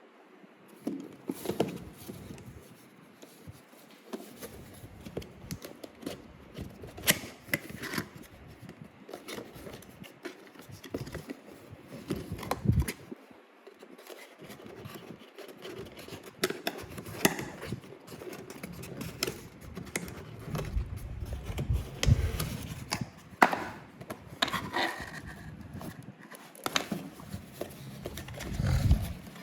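Packaging being handled and opened by hand: irregular scrapes, rubs and sharp clicks of cardboard and plastic, with a few heavier knocks.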